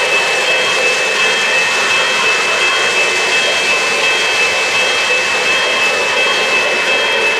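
O-gauge three-rail model trains running on the layout: a steady whirring rumble of wheels and motors on the track, with a thin high whine held over it.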